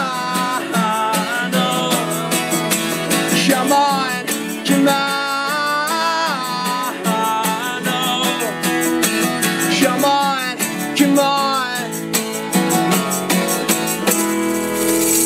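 Martin acoustic guitar strummed steadily under loud wordless singing, drawn-out bending vocal lines with no lyrics. The strumming ends about 14 s in on a held final chord, and crowd cheering rises just before the end.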